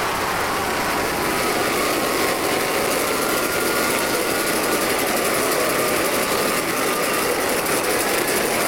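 Stadium crowd cheering steadily through a touchdown run, a dense even wash of voices with no single sound standing out.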